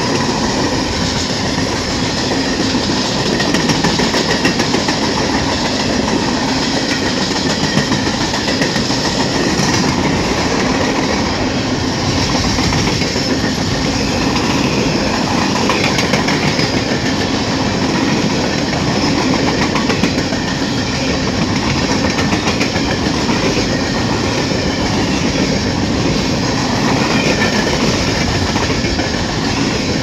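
Long CSX freight train of empty coal ash gondola cars rolling past close by at speed. The cars' wheels keep up a loud, steady rumble and clatter, clicking over the rail joints.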